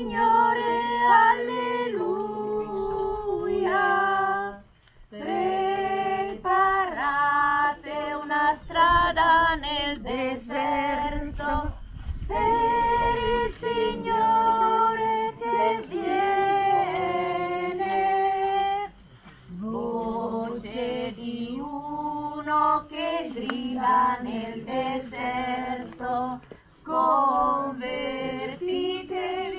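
A church choir, mostly women's voices, singing a hymn without instruments, in held phrases with brief pauses between them.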